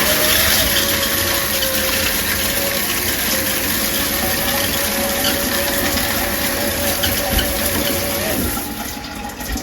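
Water spraying steadily from a newly installed hydro-powered LED shower head, run to test the fitting for leaks, with a faint steady whine. Both ease off a little near the end.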